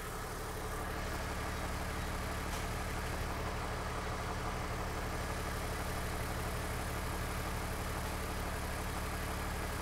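Warmed-up BMW E39 5 Series engine idling steadily.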